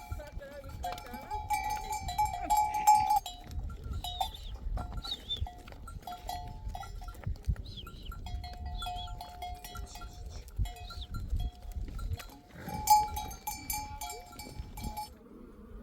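Bells on a flock of sheep and goats clanking and ringing irregularly as the animals move. The sound cuts off abruptly just before the end.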